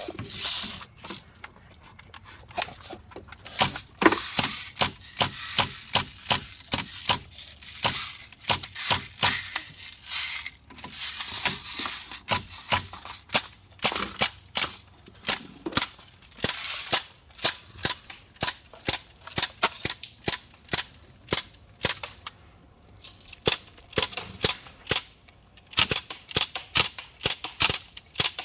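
CO2-powered BB guns firing over and over: dozens of sharp pops, often in quick runs of several shots a second from full-auto and burst fire, with short pauses between runs.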